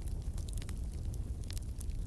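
Wood fire burning in a fireplace: a steady low rumble of flames with scattered sharp crackles and pops, a few louder pops near the end.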